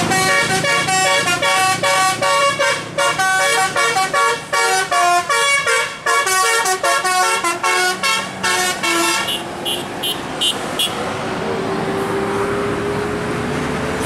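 A coach's telolet horn plays a quick multi-note tune, the notes changing several times a second for about nine seconds. A few short toots follow, and then the coach's engine runs on with a slowly rising tone.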